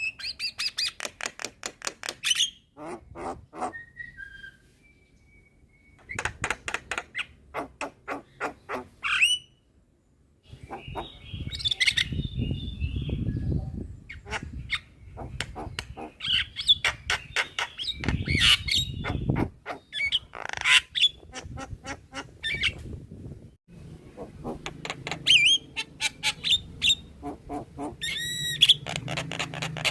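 Javan myna singing in a fast, chattering series of rapid clicking notes and harsh squawks, mixed with a few short whistled notes, with brief pauses between phrases.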